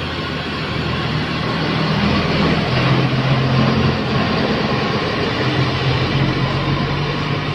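Tour bus engine and road noise passing close by: a heavy, steady rumble that grows louder over the first couple of seconds and then holds.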